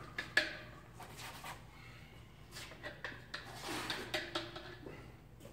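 Scattered light clicks, knocks and rustling as a plastic paint container, rag and brushes are handled, with one sharp click about half a second in.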